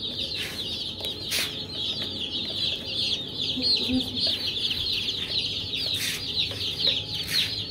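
A crowd of baby chicks peeping without pause, a dense chorus of many short, high cheeps, with a few sharp taps among them.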